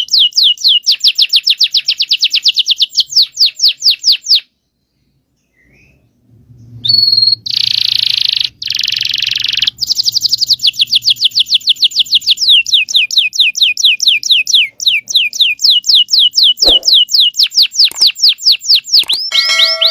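Domestic canary singing long rolling trills of fast repeated descending notes, about eight a second. About a quarter of the way in it stops for roughly two seconds, then gives a harsh buzzing phrase before rolling into trills again.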